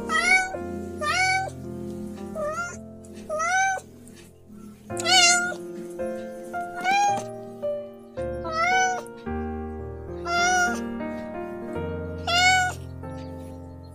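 A cat meowing again and again, about every two seconds, each meow rising and then falling in pitch, over background music.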